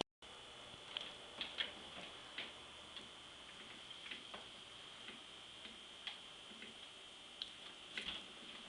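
Faint, irregular light ticks and clicks, about a dozen scattered through a quiet room, over a steady high-pitched hum.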